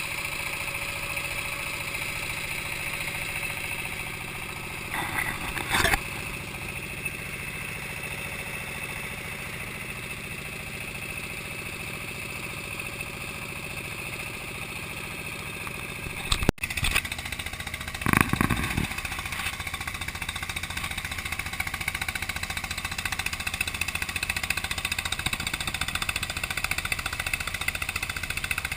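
Wooden river boat's motor running steadily as it travels, a constant drone with a couple of brief louder knocks and splashes. The sound cuts out for an instant a little over halfway through and comes back with a heavier low drone.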